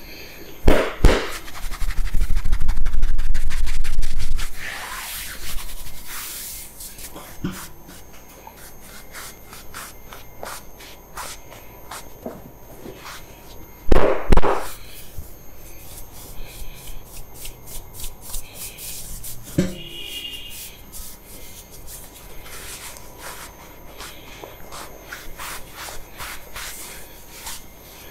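Hands rubbing over the scalp, hair and skin during a head massage, close to the microphone, with a loud stretch of rubbing about two to four seconds in. A few loud sharp thumps, around a second in and twice about halfway through.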